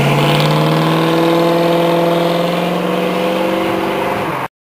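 1970 Plymouth Hemi 'Cuda's 426 Hemi V8 accelerating away through its four-speed manual. The exhaust note drops at a gear change right at the start, climbs steadily, then levels off and fades a little as the car pulls away. It cuts off suddenly near the end.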